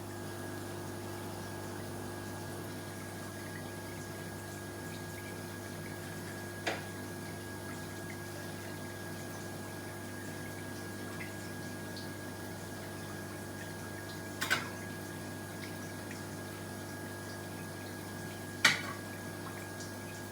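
A steady low hum with a faint watery trickle, broken three times by a short click or knock.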